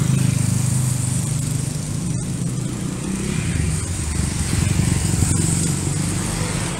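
Road traffic passing close by: small motorcycle engines and cars going past. The engine drone is loudest as a motorcycle passes right at the start, and swells again about five seconds in.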